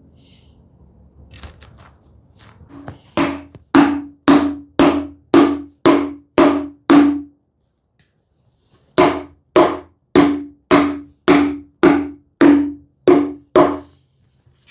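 Mallet blows on a wooden block held over a drawer's glued dovetail joints, driving the joints home: two runs of evenly spaced knocks, about two a second, with a short pause between.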